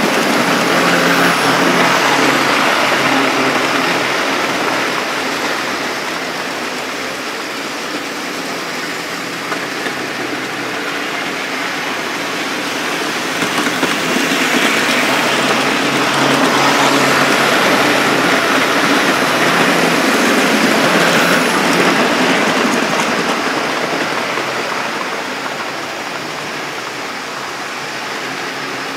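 OO-gauge model trains running on the layout: a steady rumble of wheels on rail with the hum of the locomotive motors. It swells as trains pass close at the start and again from about 14 to 22 seconds, then eases off.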